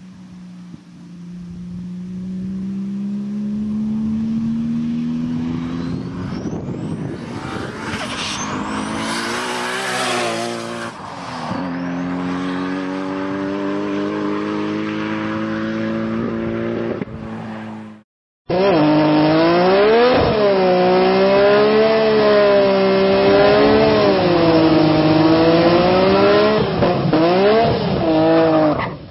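Nissan Skyline R34 GT-R's RB26/30 straight-six accelerating toward and past, its note climbing as it approaches, dropping in pitch as it goes by, then running steadily as it pulls away. After a sudden cut, an engine is held at high revs and swung up and down during a tyre-smoking burnout.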